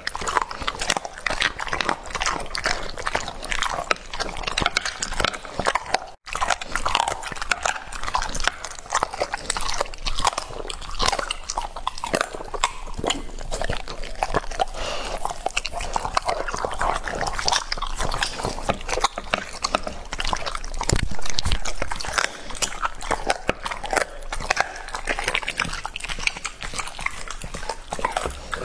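Rottweiler chewing and crunching raw chicken, a dense run of wet crunches and jaw smacks. The sound cuts out for an instant about six seconds in.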